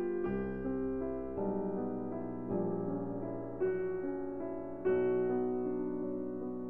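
Background piano music: slow, gentle chords, each struck and left to ring, a new one about every second.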